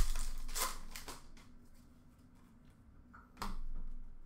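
Trading cards being handled and slid against each other: a sharp tap at the start, crisp rustling and clicking for about a second, then another brief rustle about three and a half seconds in.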